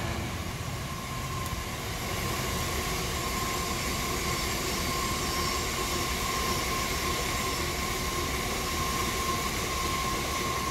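A train running past at the platform: a steady rush of rolling noise with a steady high whine over it.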